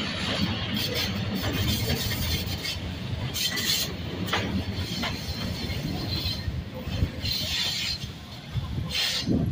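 Vintage subway train running through an elevated station at speed without stopping: a steady rumble of steel wheels on the rails, with several short, higher-pitched bursts of wheel noise over the top as the cars go by.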